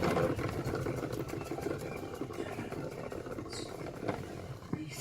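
Salad spinner whirring steadily as its basket spins washed jute mallow leaves, throwing the water out of them.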